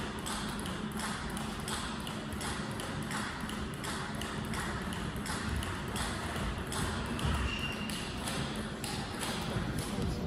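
Irregular sharp clicks of table tennis balls striking bats and tables, about two a second, over the hum of a large sports hall.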